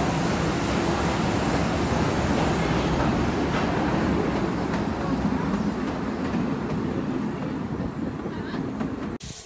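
Small steam locomotive hauling a garden-railway train, heard from the car just behind it: a steady running noise of the engine and the wheels on the track, which cuts off suddenly near the end.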